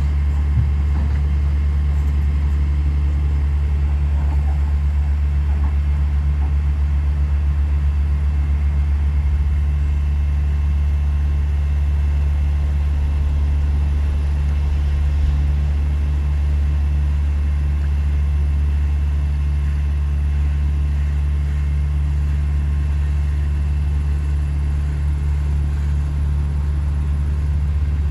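Diesel engine of heavy earthmoving equipment running steadily under work, a constant low drone with no pauses.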